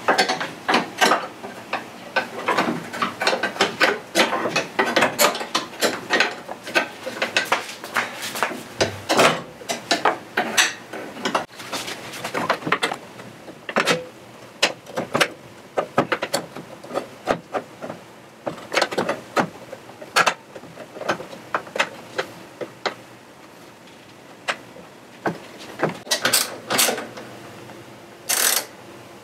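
Hand ratchet wrench clicking, with clinks and knocks of tools and metal parts, in irregular runs with short pauses, as the radiator's mounting bolts are worked.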